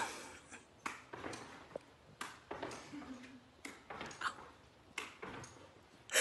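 Dog's paws landing and claws clicking on the floor as it hops and bounds about, a string of irregular short knocks.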